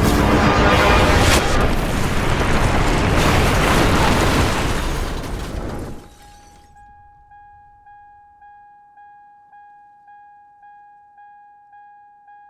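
Film soundtrack: a loud, dense blast-like roar mixed with score for about six seconds. It then cuts off, leaving a steady high ringing tone that pulses about twice a second and slowly fades.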